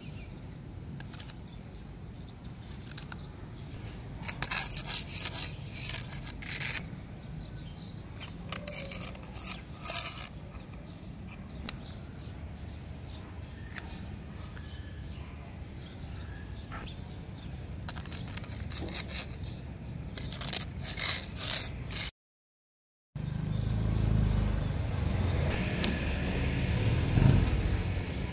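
A dry leaf crackling and rustling in short bursts as cats swat and grab at it, over steady outdoor background noise. After a brief dropout, a louder steady rumble of background noise takes over.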